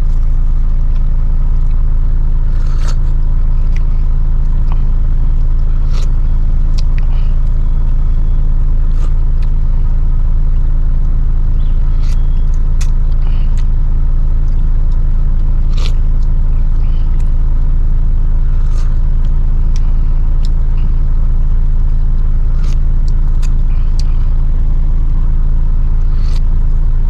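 A vehicle engine idling with a steady low hum, with scattered light clicks and taps over it.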